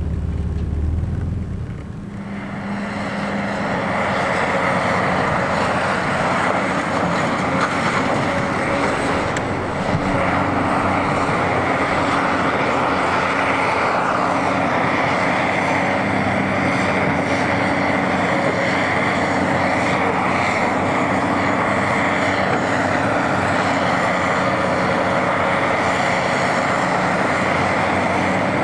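Hydraulic excavator's diesel engine running steadily as it works, a constant drone with no let-up; a deep low rumble in the first two seconds gives way to it.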